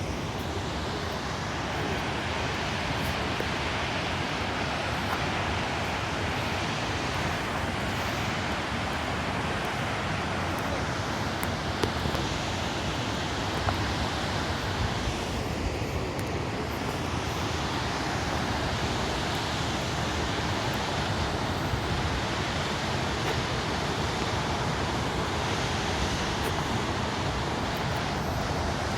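Steady rushing roar of a large waterfall, Jog Falls, its water plunging into the gorge, with a couple of faint knocks partway through.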